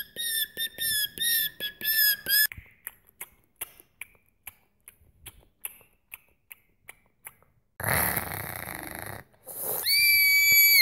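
Cartoon sound effects: a run of about seven short, high squeaks with a wobbling pitch, then light ticks about three a second, then a rough rushing noise lasting about a second and a half, and near the end a long, steady, high whistle.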